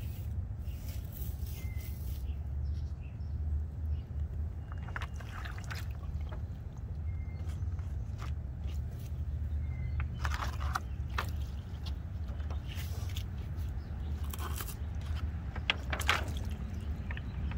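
Steady low rumble with scattered rustles and light knocks of plants and objects being handled in a garden.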